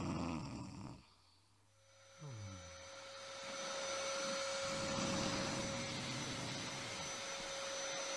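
A man snoring, then a vacuum cleaner starting up about two seconds in and running steadily with a whine over a rush of air.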